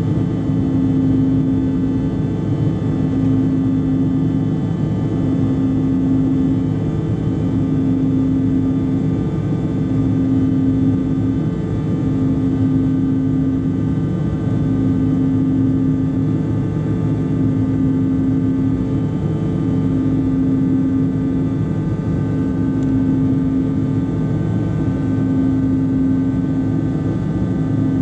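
In-flight cabin noise aboard a Bombardier CRJ-900: a steady drone of engines and airflow. A low hum swells and fades about every two seconds, with fainter steady whines higher up.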